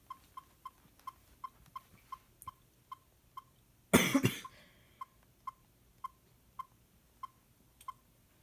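A person coughs once, about four seconds in, over a run of short, high ticks at about three a second.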